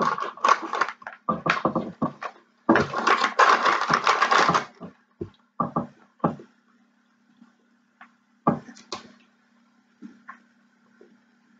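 Crunching on a ridged potato chip, then the foil chip bag crinkling as it is picked up and handled. The crackling is densest for about two seconds, starting about three seconds in, then thins to a few scattered crackles.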